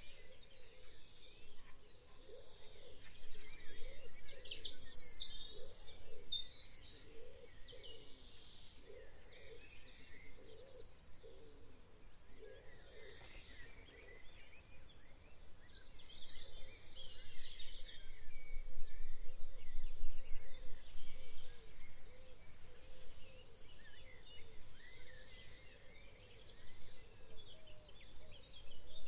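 Several songbirds singing in spring, with short high trills and warbling phrases overlapping throughout. A low rumble swells briefly past the middle.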